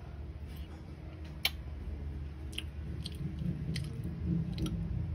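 Eating grilled milkfish: a handful of sharp clicks and crackles, the loudest about one and a half seconds in, over a low steady hum.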